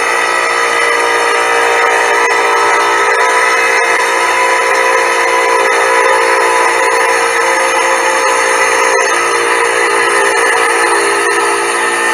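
Small tabletop tile saw running, its diamond blade grinding steadily through an agate with a loud, even whine.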